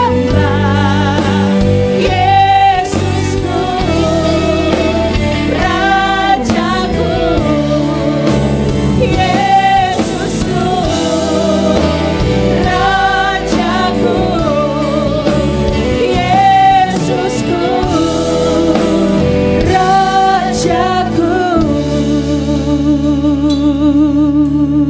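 Gospel worship song: women's voices singing through microphones in repeated phrases with vibrato, backed by a drum kit with cymbals. Near the end the drums drop out and a held note carries on.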